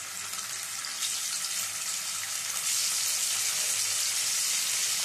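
Bele fish sizzling in hot mustard oil in a wok as the pieces are slid in one by one. The frying hiss steps up louder about a second in and again near the middle as more fish go into the oil.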